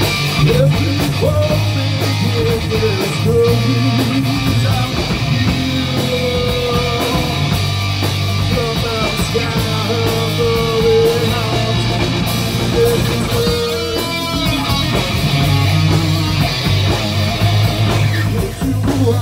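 Live rock band playing: electric guitar over a drum kit, loud and continuous, with long held notes.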